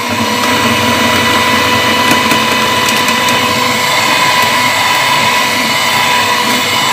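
Electric hand mixer running at low speed, its beaters whisking egg-and-sugar batter in a bowl, with a steady whine.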